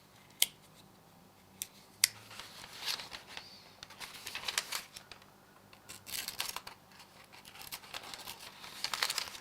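A folding knife's stainless steel blade slicing through thin catalog paper in a series of scratchy, rasping strokes, after a few sharp clicks in the first two seconds. The blade cuts, but not cleanly.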